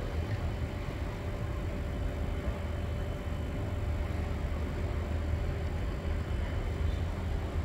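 Steady low rumble of distant ambience, heavy in the bass, with a faint steady hum above it.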